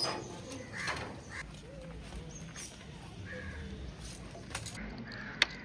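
Faint outdoor background of short bird calls and distant voice fragments, with one sharp click near the end.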